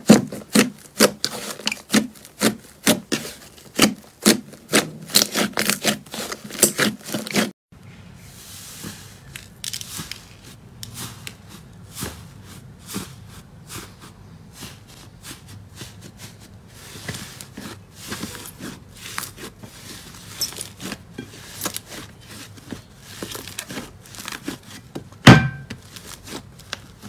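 Fingers pressing and poking thick slime, with rapid sharp clicks and pops as air pockets burst in it. About seven seconds in the sound drops to quieter squishing and light crackling as another slime is kneaded, with one loud pop near the end.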